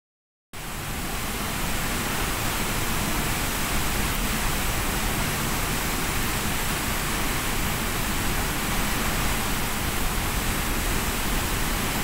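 Steady rushing hiss of falling water from the waterfall and the rain. It cuts in about half a second in.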